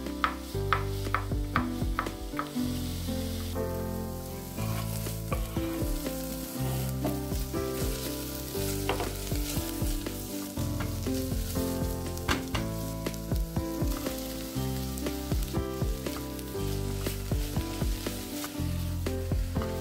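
A chef's knife chopping garlic on a wooden cutting board, about three cuts a second, stopping about three to four seconds in. Then vegetables sizzle as they fry in oil in a stainless-steel pot, stirred with a wooden spoon that knocks against the pot now and then. Music plays underneath.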